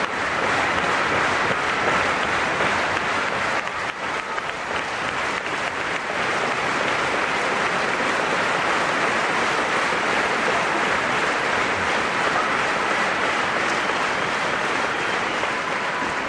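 Audience applauding, a dense and steady clapping that runs on without a break.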